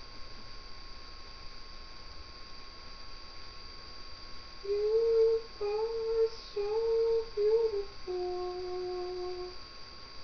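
A voice sings a short phrase of steady, smooth notes: four short notes on the same pitch, then one longer, lower note, starting about halfway through. A faint steady high whine runs underneath.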